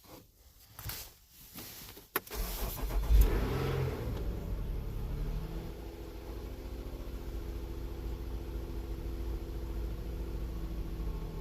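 Nissan Murano engine cranking and catching about two seconds in, flaring briefly, then settling into a steady idle. It is running much better on its new catalytic converter and oxygen sensors.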